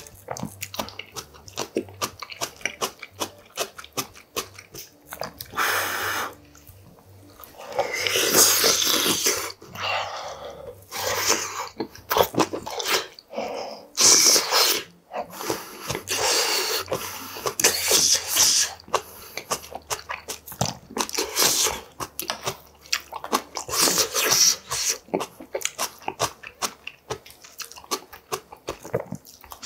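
Close-miked eating: a man chewing mouthfuls of spicy budae bokkeum (sausage, rice cakes, noodles and melted cheese) with rice, with many short wet clicks and spoon taps. About seven times, a louder hissing sound lasts a second or two.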